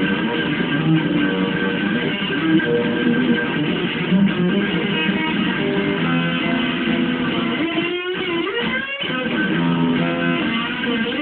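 Electric guitar played through an amplifier, its notes held and ringing over one another.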